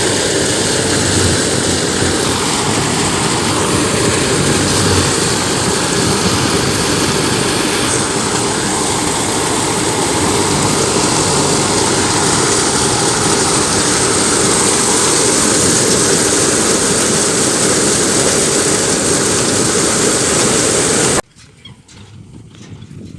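Combine harvester working wheat, its engine and machinery running steadily with a dense, even noise. It cuts off suddenly near the end, leaving a much quieter stretch with a few light knocks.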